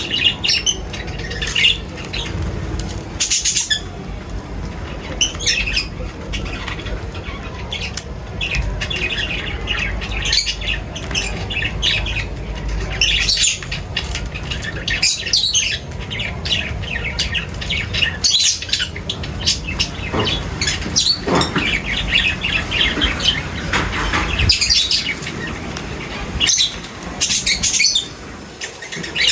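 A flock of birds chirping in many short, overlapping calls, over a steady low rumble.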